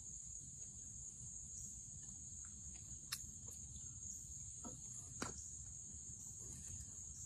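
Steady high-pitched chorus of insects, with two short sharp clicks about three and five seconds in and a low rumble underneath.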